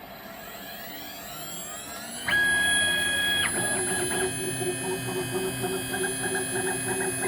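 Homebuilt CNC machine peck drilling 1 mm holes. Its motor whine rises over the first two seconds, then about two seconds in a louder steady motor tone sounds for about a second. After that comes a fast, even pulsing with ticks as the drill pecks in and out.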